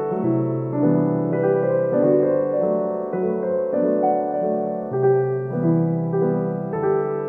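Piano background music: a melody played over held chords.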